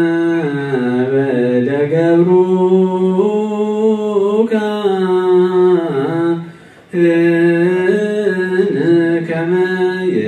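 A man chanting Ethiopian Orthodox liturgy in Ge'ez into a microphone, in long melismatic phrases with the pitch sliding and turning, breaking off briefly about six seconds in before starting again. The chant is the deacon's call for the congregation to bow their heads for the priest's blessing.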